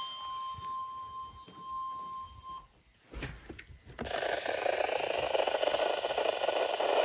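NOAA Weather Radio warning alarm tone (1050 Hz) from a weather radio receiver: a steady tone that cuts off about two and a half seconds in, signalling a weekly alarm test. After a short near-silent pause with a few clicks, a steady radio hiss starts about four seconds in.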